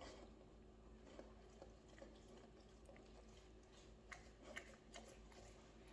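Near silence: room tone with a few faint, scattered soft clicks.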